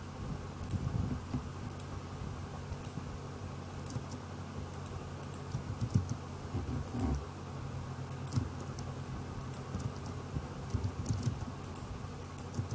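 Scattered keystrokes on a computer keyboard mixed with mouse clicks, over a low steady electrical hum.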